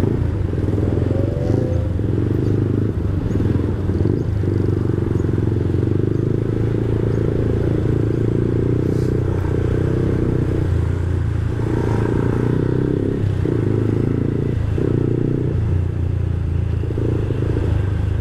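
Yamaha R15's 155 cc single-cylinder engine running at low speed as the bike creeps through stop-and-go traffic: a steady low rumble with no revving.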